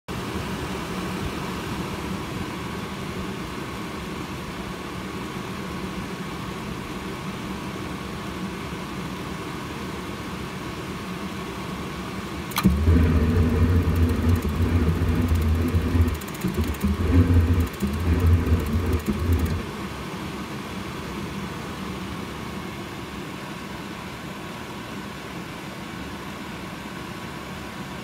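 Atwood RV furnace running, its blower motor humming steadily. About twelve seconds in a sharp click sets off rapid spark-igniter ticking and a loud, low, faltering rumble from the burner that stops after about seven seconds, leaving the blower alone.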